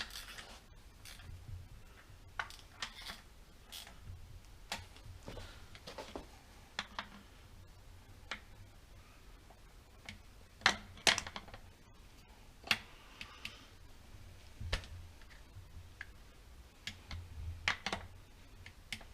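Scattered light clicks and taps, spaced a second or more apart, from hand tools and metal parts handled on an engine during cambelt timing work.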